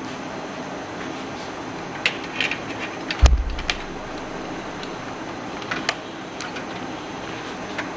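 Scattered light clicks and knocks of cables and plastic connectors being handled and plugged in inside a computer case, with one louder click and thump about three seconds in, over a steady hiss.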